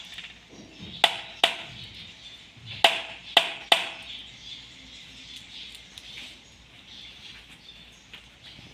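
An egg tapped against the rim of a ceramic bowl: about five sharp knocks with a short ring, two near the start and three close together a few seconds in, then only faint handling sounds.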